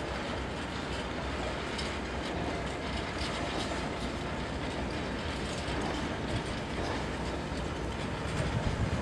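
Diesel locomotive hauling empty flat wagons slowly past, the wheels clattering over the rails, with a heavier low rumble coming in near the end as the locomotive draws closer.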